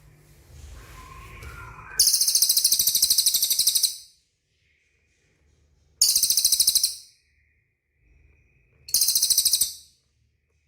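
Cililin songbird singing three loud, very high-pitched rapid trills, the first about two seconds long and the next two about a second each, each a fast run of repeated notes.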